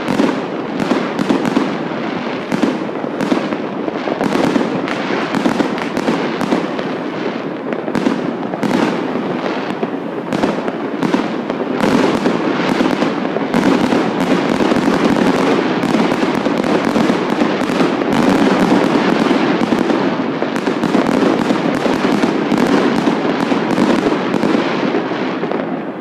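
Fireworks going off all over the city in a dense, unbroken barrage: many overlapping bangs and crackles, several a second, with no pause.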